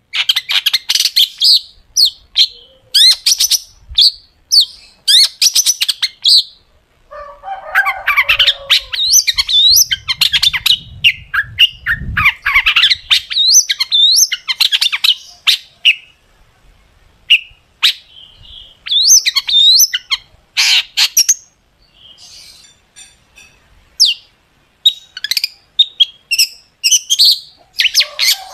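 Long-tailed shrike (cendet) singing a loud, fast song: runs of sharp, rapid chattering notes and quick up-and-down whistles in bursts. A few lower, harsher phrases come in about a third of the way through, and there are short pauses past the halfway mark.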